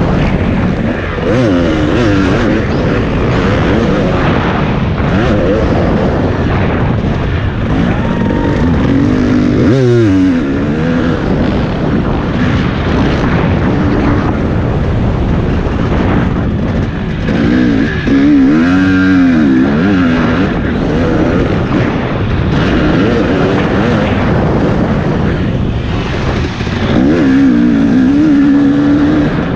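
Off-road motorcycle engine working hard, revving up and dropping back over and over as the bike accelerates, shifts and slows around a dirt track.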